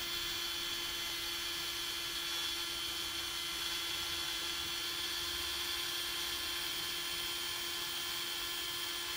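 Bosch GO Gen 3 cordless screwdriver running at no load, a steady whine from its motor and gearbox, spinning at about 320 RPM.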